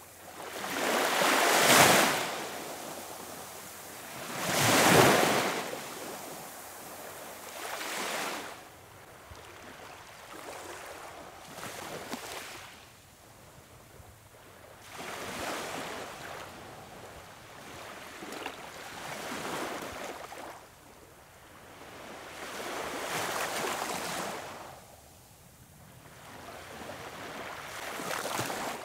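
Small waves washing up on a sandy beach. Each swash swells and fades every three to four seconds, and the two near the start are the loudest.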